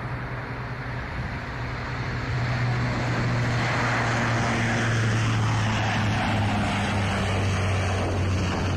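A C-130J Super Hercules at takeoff power: the four Rolls-Royce AE 2100 turboprops with six-bladed propellers make a steady low drone under a rushing roar, growing louder about two seconds in.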